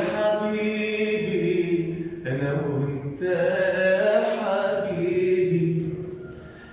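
A man singing alone in classic Egyptian Arabic style, drawing each syllable out into long held notes. He breaks off briefly about two seconds in and again about three seconds in, and the last note fades near the end.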